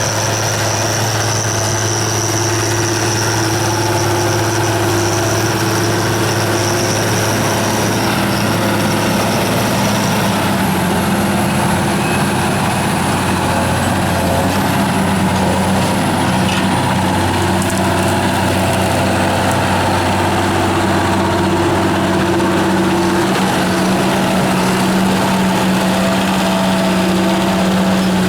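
Large John Deere tractors' diesel engines running steadily under load while ploughing, a continuous drone with a high whine that fades out about ten seconds in.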